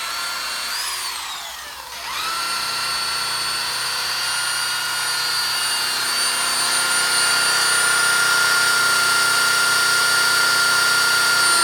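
Electric buffer with a polishing wheel running against a plastic headlight lens coated in finishing compound, held in one spot. Its motor whine winds down about two seconds in, then starts again and runs steady.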